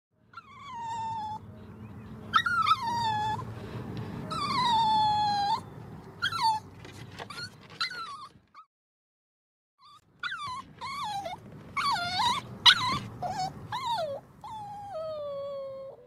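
Dog whining in a string of high calls that slide down in pitch, with a few short yips among them. The calls stop for about a second and a half midway, then resume and end on one long falling whine.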